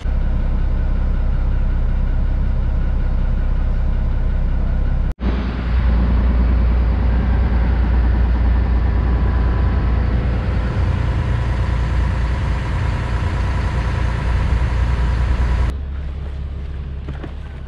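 Boat engine running steadily with a deep drone. The sound cuts out for an instant about five seconds in, and it drops quieter near the end.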